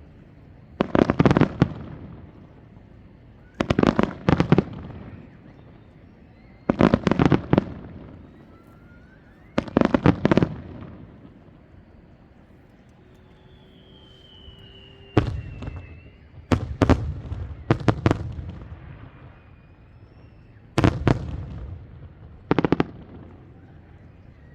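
Aerial firework shells bursting overhead in groups of several sharp cracks every few seconds, each group trailing off in a rumble.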